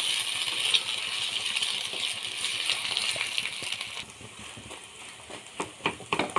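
Egg and capsicum frying in a pan, sizzling steadily, while a spoon stirs and scrapes through it. The sizzle drops away about four seconds in, and near the end the spoon clinks and scrapes sharply against the pan several times.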